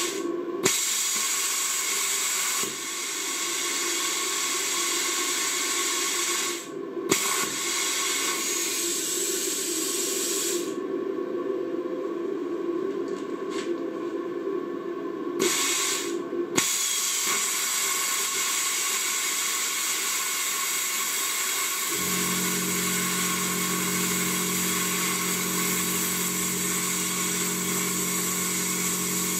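Plasma cutter at 35 amps cutting 20 mm steel flat bar: a loud, steady hiss of the plasma arc and air jet, cut off briefly a few times. About 22 seconds in, a steady low hum joins the hiss.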